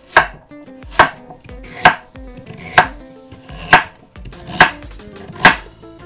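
Kitchen knife slicing carrots into rounds on a cutting board: sharp, evenly spaced chops a little under a second apart, seven in all.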